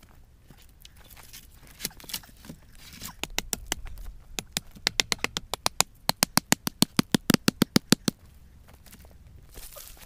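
A hatchet chopping into a thin wooden stake in a fast, even run of sharp strikes, about five a second. The chopping starts about three seconds in and stops about eight seconds in, with a few scattered twig cracks before it.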